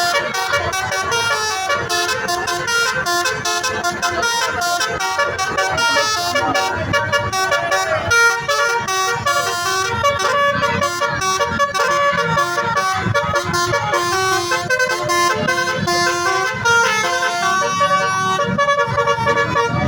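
Telolet basuri bus horn playing a melody, its tuned notes stepping from one pitch to the next without a break.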